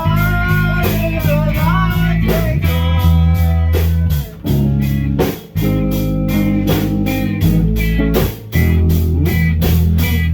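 A rock band playing: electric guitar with bent notes over bass and a steady drum beat, with a few short breaks.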